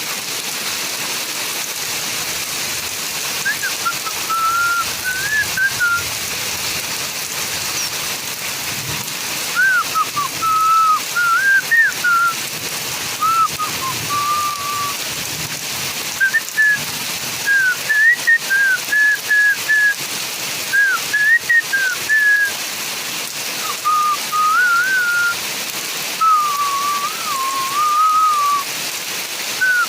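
Steady rain falling, with a person whistling a wandering tune over it in short phrases from a few seconds in. The whistling is the loudest sound.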